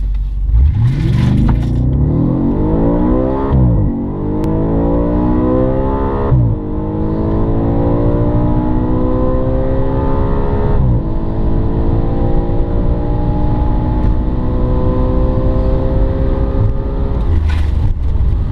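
Audi RS5's 4.2-litre V8 heard from inside the cabin at full-throttle acceleration: it launches about half a second in, the revs climb in long rising sweeps broken by three quick upshifts of the dual-clutch gearbox, then the revs fall away near the end as the throttle is lifted.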